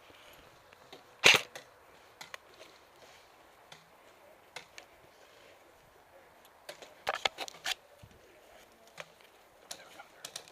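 Airsoft guns firing: one loud single shot about a second in, a quick string of shots about seven seconds in, and a few fainter shots near the end.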